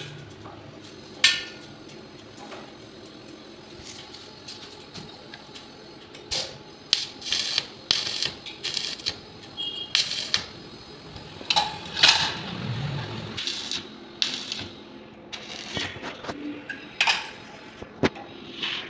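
Irregular sharp clicks and short crackling bursts as stainless steel square railing pipe is tack-welded at its joints. The strikes come in clusters through the middle and near the end, after a quieter few seconds near the start.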